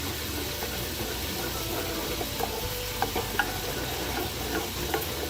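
Spoon stirring honey barbecue sauce in a small saucepan on the stove, with scattered light clicks against the pan over a steady sizzling hiss.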